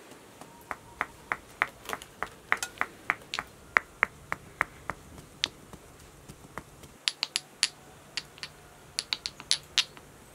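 A pestle grinding saffron threads in a small white stone mortar, knocking against the mortar's walls in sharp clicks at about three a second. The clicks stop briefly a little past the middle, then start again and sound brighter.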